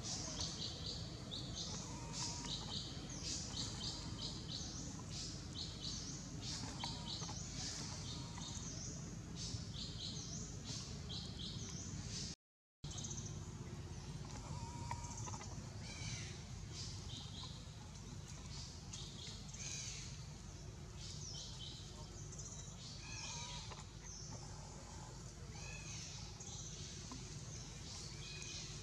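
Birds chirping repeatedly in the forest canopy, short high notes over a steady low background noise, busiest in the first half. The sound cuts out completely for a moment about twelve seconds in.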